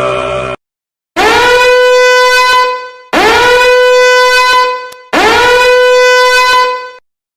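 A horn sounding three long, loud blasts, each scooping up in pitch and then holding one steady brassy note, as in a meme sound effect. Just before them, a droning sound cuts off suddenly.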